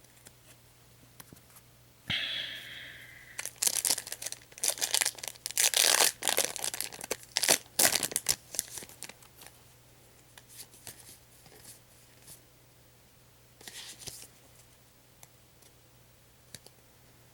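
A foil Yu-Gi-Oh booster pack being torn open about two seconds in, followed by crinkling of the wrapper and rustling of the cards being handled. The sound thins out to occasional rustles, with a short burst of crinkling near the end.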